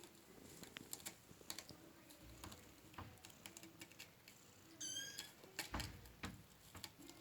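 Young kittens playing, making scattered light taps, scratches and scuffles. One brief, high, wavering kitten mew comes about five seconds in.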